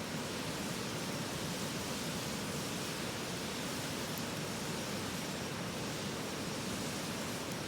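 Steady rushing of a mountain river, an even wash of water noise with no distinct events.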